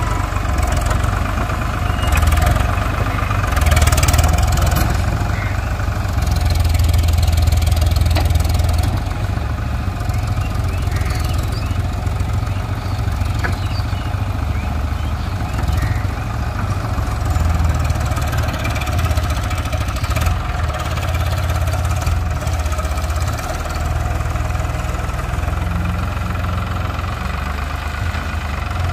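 Farmtrac tractor's diesel engine running under load as it pushes soil with its front dozer blade, a steady low drone that swells louder in a couple of stretches in the first third.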